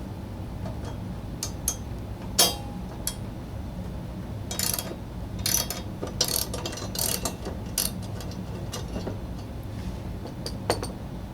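Socket wrench ratcheting as the lawn mower's blade bolt is loosened: irregular runs of ratchet clicks, densest in the middle, with a sharp metal click about two seconds in and another near the end.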